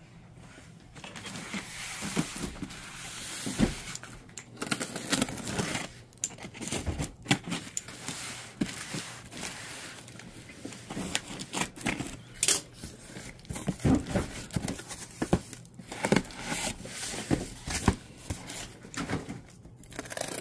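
Cardboard shipping cartons being handled and opened: packing tape tearing, cardboard scraping and rustling, and irregular knocks as boxes are set down. Near the end, a utility knife slits the tape on a small carton.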